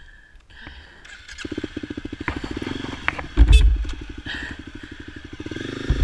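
Dual-sport motorcycle engine starting about a second and a half in and then running with an even firing beat, with a brief louder burst about three and a half seconds in.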